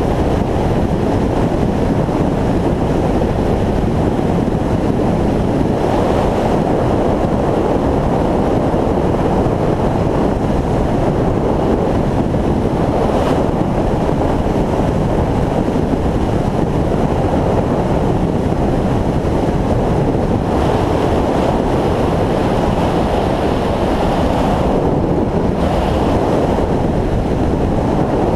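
Steady wind rush buffeting the microphone of a camera on a motorcycle moving at road speed, with the bike's running noise blended into it.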